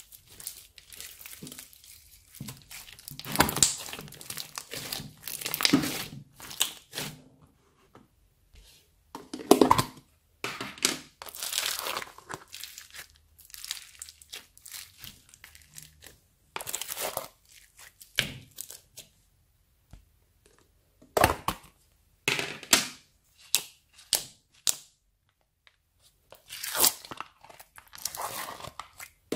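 Hands stretching, folding and squeezing slime, some of it full of small beads: sticky crackling and crunching in irregular bursts with short pauses between handfuls.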